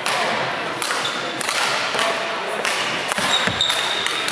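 Badminton hall ambience: a few sharp racket strikes on shuttlecocks, brief high squeaks of court shoes on the wooden floor, and a steady background hubbub, all echoing in the large hall.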